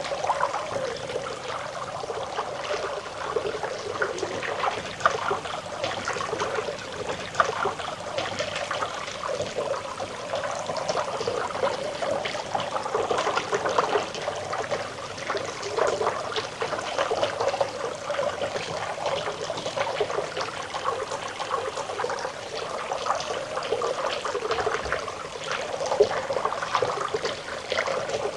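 Water trickling and gurgling steadily, like a small stream running over stones.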